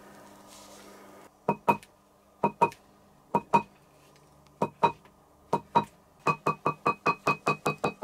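A steel cobbler's hammer strikes a leather shoe part laid on a marble slab, each blow ringing with a clear tone. The blows come in pairs about a second apart, then in a quick run of about four a second near the end.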